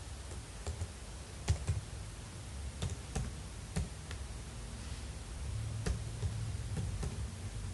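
Computer keyboard keys pressed one at a time, with slow, irregular clicks as a web address is typed, over a steady low hum.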